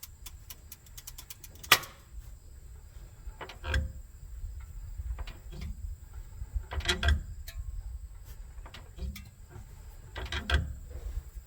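Worn transmission torque arm on a 2013 Ford Edge clunking as the car is rocked by hand: dull knocks about every three seconds, with a sharp click a couple of seconds in. The joint has a lot of play; the torque arm is worn out.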